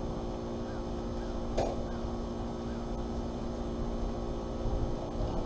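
Steady mechanical hum over a low rumble, with a single sharp click about a second and a half in.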